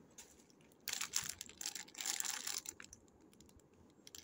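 Clear plastic wrapper of a packaged bread bun crinkling as it is handled: a quick, dense crackle lasting about two seconds, starting about a second in.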